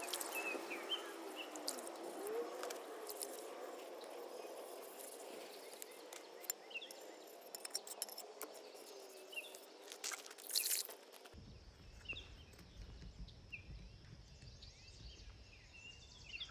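Quiet outdoor background with short bird chirps, and scattered light taps and scrapes of a scraper working on an old ceramic sink. About eleven seconds in, a low steady rumble comes in suddenly.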